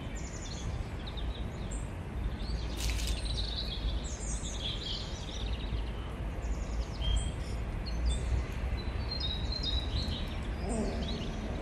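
Small birds chirping on and off over a steady low background rumble of outdoor ambience, with one short sharp noise about three seconds in.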